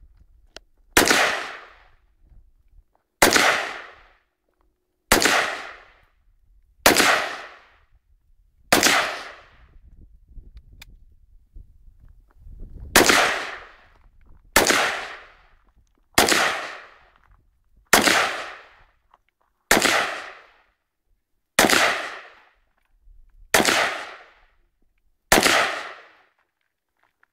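Rifle fired in deliberate single shots, thirteen in all, about one every two seconds, with a longer pause of about four seconds midway; each sharp crack is followed by a short fading echo.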